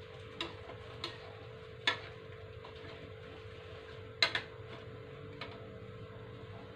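Metal spatula clinking against a wok as vegetables are stirred: a handful of sharp, irregularly spaced knocks, two close together past the middle. Underneath is the steady hum of the induction cooker.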